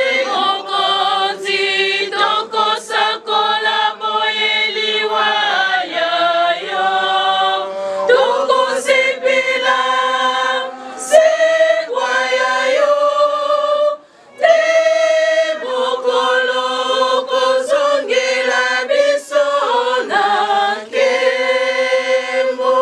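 A group of women singing a church hymn together, unaccompanied, in held notes that change pitch every second or so.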